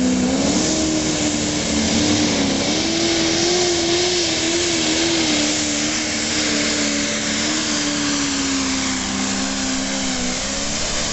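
Modified diesel pulling tractor's engine held at full throttle under load while pulling the sled: a steady, high-revving drone that steps up about half a second in, wavers slightly, then sags gradually in pitch toward the end.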